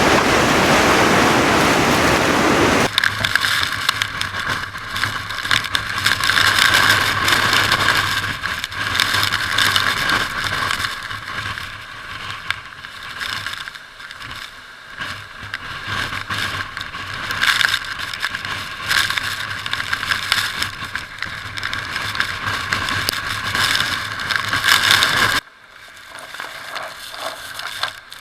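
Hurricane-force wind noise. It starts as a full, rushing roar, then cuts abruptly about three seconds in to a hissier, gusting sound with a faint steady hum beneath, and drops sharply again near the end.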